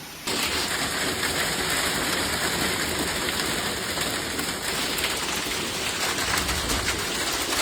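Heavy rain pouring down steadily, a dense hiss of drops with fine patter, starting about a quarter second in.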